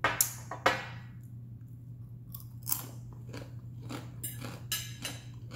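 Crunchy chewing of breaded fried food with the mouth closed: two loud crisp crunches in the first second, then softer, scattered crunches, over a steady low hum.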